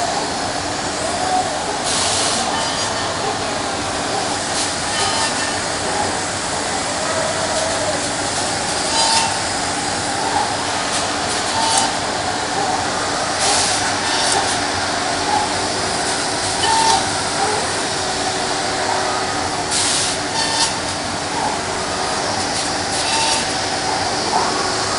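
Bacci Master-Win 5-axis CNC machining centre running and milling solid-wood window and door frame parts: a steady spindle and cutting noise, with short hissing bursts every few seconds.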